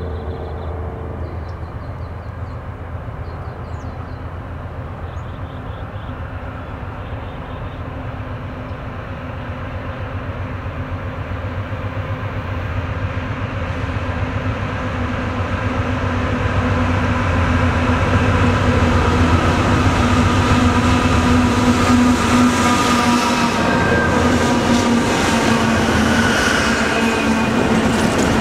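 CSX freight train led by GE CW40-8 diesel locomotives approaching and passing. The engines' steady drone grows louder through the first half. Near the end, the clatter of wheels on rail joins it as the locomotives and covered hopper cars roll by.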